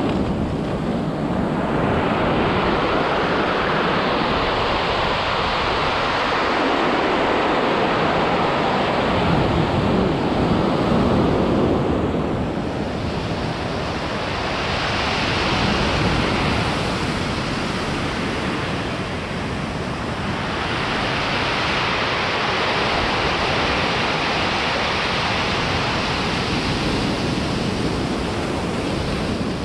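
Ocean surf breaking and washing up a pebble beach, a steady rush that swells and eases several times as waves come in and draw back, with wind buffeting the microphone.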